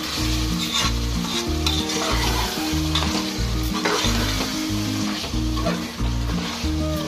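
Chicken pieces frying in a thick green masala in a pressure cooker pot, sizzling steadily while being stirred, with scattered light scrapes and clicks of the spoon; the chicken is well fried. Under it runs background music with a repeating low bass line.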